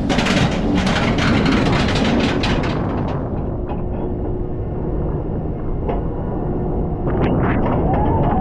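SheiKra, a B&M dive coaster, with its train rolling over the top of the lift hill: wind buffets the rider-worn microphone among irregular clattering clicks. About three seconds in, this settles to a steadier, quieter low rumble as the train eases toward the holding brake above the vertical drop. A few sharp clicks come near the end, then a thin tone that rises and holds.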